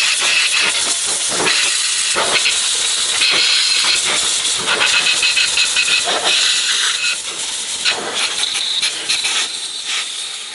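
Compressed-air blow gun hissing as it blows out the main bearing saddles and bolt holes of a 440 Mopar engine block, the hiss rising and falling in strength. The block is being cleaned after the main caps come off, before the bearings go in.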